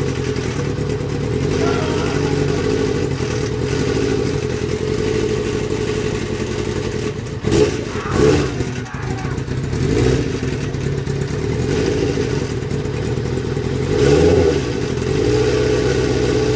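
1998 Kawasaki ZX-6R's inline-four engine running at idle, with a few short throttle blips in the second half. It carries an odd noise and a rough running that the owner cannot explain.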